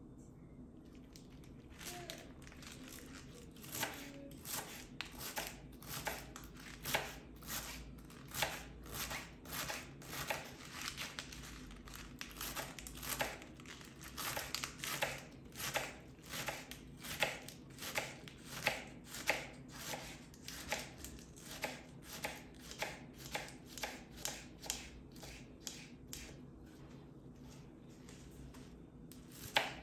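Knife slicing fresh spinach leaves on a bamboo cutting board: a steady run of crisp cuts, roughly two a second, each ending in a light tap of the blade on the board. The cutting starts about two seconds in.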